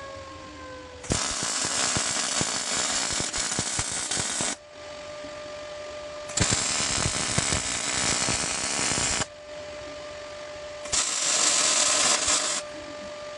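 MIG welding arc crackling in three runs of about three, three and two seconds, with a steady hum in the pauses between them.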